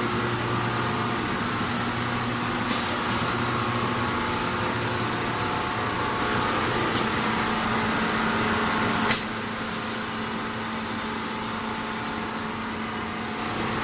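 Snack seasoning and coating drum machine running with a steady motor hum, with a few faint ticks and one sharp click about nine seconds in.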